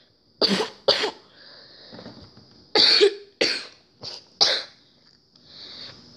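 A person coughing repeatedly, about six short coughs that come mostly in pairs, over a faint steady high hiss.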